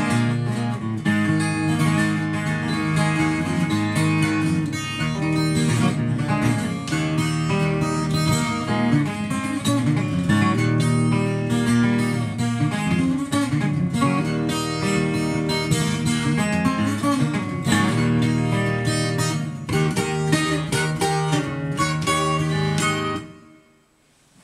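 Twelve-string acoustic guitar (Lakewood J-32-12 Custom, tuned a half step down) picked in a busy, driving run of notes. These are the closing bars of the piece, and they stop suddenly about a second before the end.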